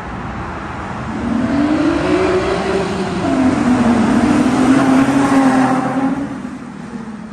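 Nissan 350Z HR's VQ35HR V6 with ISR blast pipes driving past under throttle. The exhaust note rises, drops about three seconds in, is loudest around five seconds in, then fades away.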